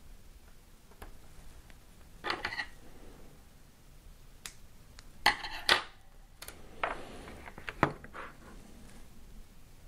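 Scattered small clicks, taps and short scrapes of a plastic tablet housing, tablet and cable connector being handled on a desk, the loudest a pair of clicks about halfway through.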